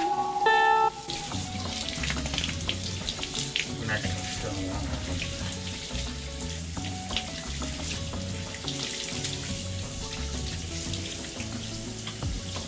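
Handheld shower head spraying water over a small dog in a bathtub: a steady hiss of running water with scattered small splashes. Background music plays under it, loud for the first second and then soft.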